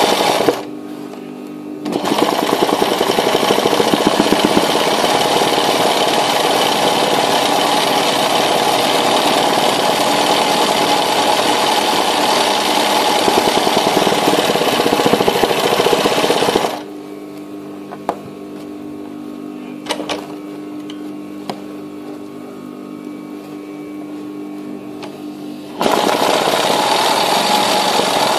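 Sewing machine stitching at speed for free-motion embroidery with metallic thread. A short run, a brief stop, then a long run of about fifteen seconds. After that comes a pause of about nine seconds with only a steady hum and a few clicks, and the stitching starts again near the end.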